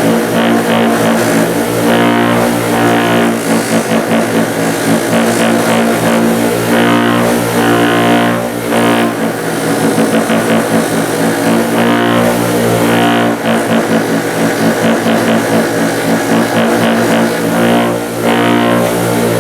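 Background music with sustained tones.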